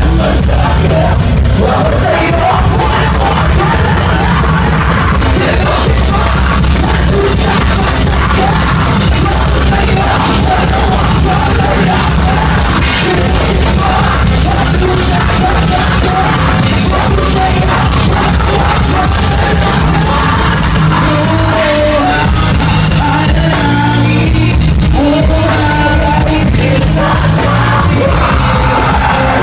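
Live band playing loud, with drums, bass and guitar and a voice singing or shouting over them.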